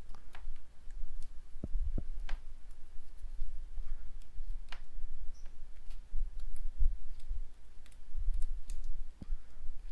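A wooden stick scraping and picking at the charred remains of a cracked triac on a washing-machine control board, giving scattered small clicks and scratches, with some dull low bumps.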